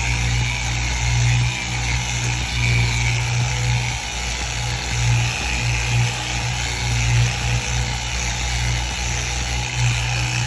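Handheld electric power tool working the boat's gel coat, running steadily with a low hum that swells and dips as it is pressed and moved over the surface.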